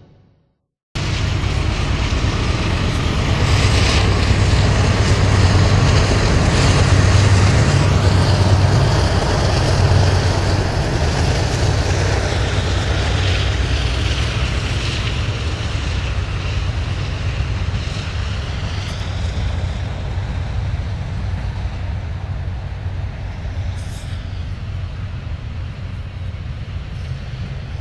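Freight train of autorack cars and double-stack container cars rolling past, steel wheels on the rails making a steady low rumble. It cuts in after a second of silence, is loudest in the first ten seconds or so, then eases off slowly.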